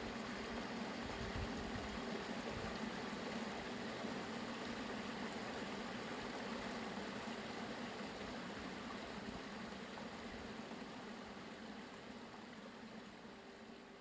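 Stream water running steadily, an even rushing and babbling with a faint steady low tone beneath, fading out over the last few seconds.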